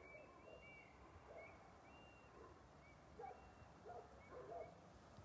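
Faint outdoor night ambience with distant animal calls: short high chirps repeating about twice a second, thinning out after the first few seconds, and a few lower calls from the middle on.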